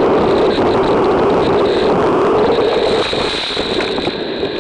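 Hurricane wind and driving rain buffeting a trail camera's microphone: a loud, steady rushing noise.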